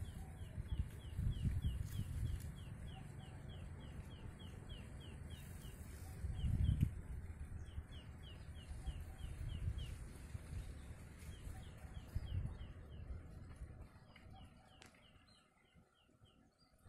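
Outdoor ambience by a farm pond: a gusty low rumble of wind on the microphone, strongest about seven seconds in, under a steady series of short high chirps repeated about four times a second. Both fade out near the end.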